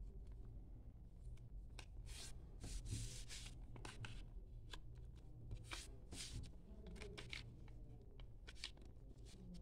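A square sheet of origami paper being folded by hand: faint, irregular crisp rustles and creasing sounds as the corners are brought to the centre and pressed flat, over a low steady hum.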